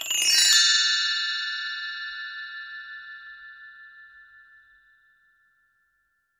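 A single bell-like chime struck once, with a brief shimmering noise at the attack. It then rings on several high tones that fade with a steady wobble over about five seconds.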